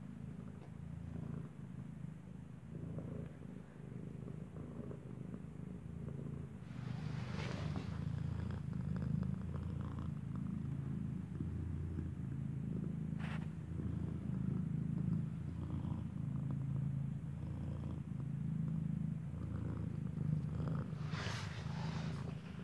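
White mother cat purring steadily up close, her newborn kitten beside her. The purr gets louder about seven seconds in, and a few brief scratchy rustles break in over it.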